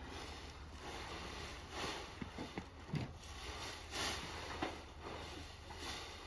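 Outdoor ambience: a steady hiss with a low hum, soft swells of noise, and a few light knocks and clicks in the middle.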